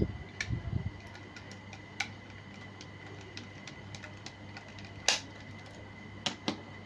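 Scattered light clicks and taps of small hard parts and tools being handled while a laptop is taken apart, with a sharper click about five seconds in and a few dull bumps at the start. A faint steady high tone runs underneath.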